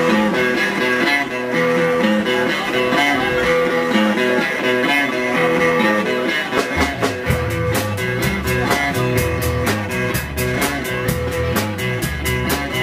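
Live electric guitar playing an intro riff through an amplifier. About six and a half seconds in, the bass and drums come in with a steady beat and the full band plays on.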